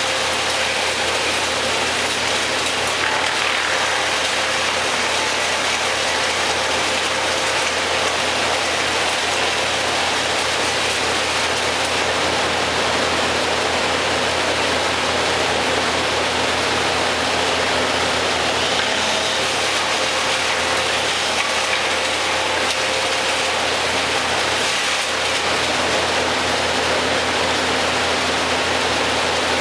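Heavy engine-driven machinery running steadily, a constant noisy drone with a low hum and no changes in pitch or level.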